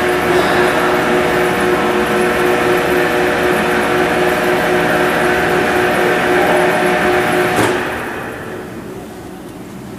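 Electric power-tilt drive of a 1993 P&H WP12 welding positioner running, a steady motor-and-gearbox whine with several held tones as the table tilts. Near the end it cuts off with a click, leaving a fainter hum.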